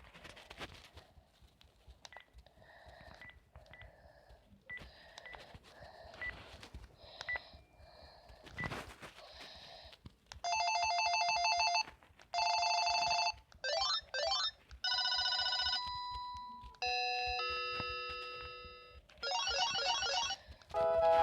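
Cordless phone handset giving faint short beeps about once a second, then, from about ten seconds in, playing a run of loud electronic ringtones, each a second or two long before the next tune starts. A single thump comes just before the ringtones begin.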